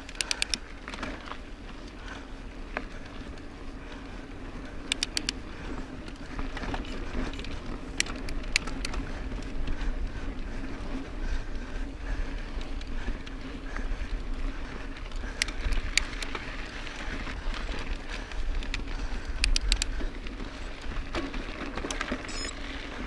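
Mountain bike rolling along a dirt and rock trail: steady tyre and wind noise, broken every few seconds by short clusters of sharp clicks and rattles.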